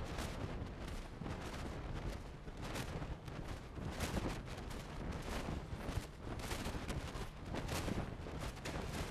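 Handling noise of a hand-held camera carried along at walking pace: irregular knocks and thuds, a few times a second at most, over a steady low rumble.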